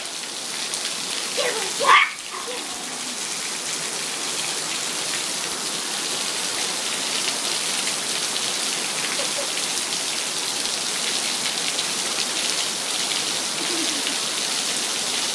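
Steady heavy rain pattering down, with a brief high-pitched vocal sound about two seconds in.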